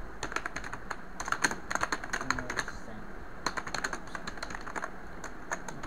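Computer keyboard being typed on: quick runs of keystrokes in three bursts, with short pauses between them.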